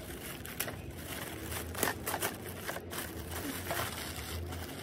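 Shiny metallic gift wrap crinkling and tearing as it is pulled off a present by hand: a scattered string of sharp crackles.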